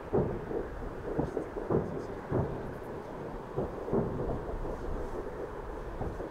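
Aerial fireworks shells bursting at a distance: a string of irregular, dull booms, several close together at times, heard mostly as low, muffled thuds over a low rumble.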